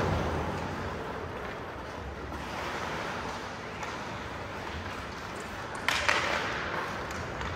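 Ice hockey play on a rink: a steady hiss of skates and play on the ice, with a sudden sharp clatter about six seconds in.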